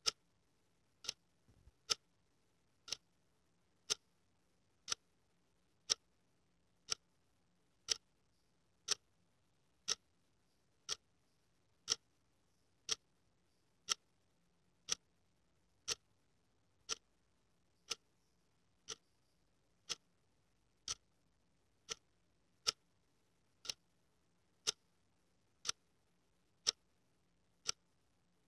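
A clock ticking steadily, one tick a second.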